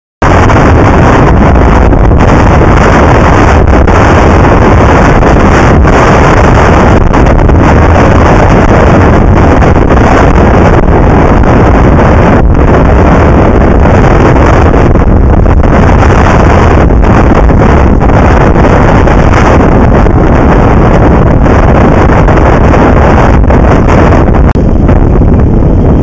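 Strong wind blowing across the microphone: a loud, unbroken rush of wind noise, heaviest in the low end.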